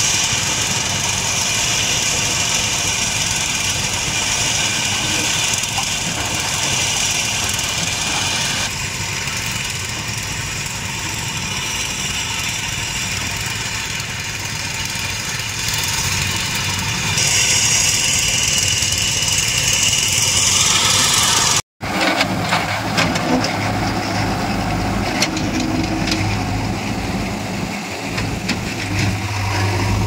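Diesel engine of a JCB 3DX backhoe loader running as it works in a quarry, with a steady hiss over the engine sound. After a sudden cut about two-thirds of the way in, a diesel engine idles with a steady low hum.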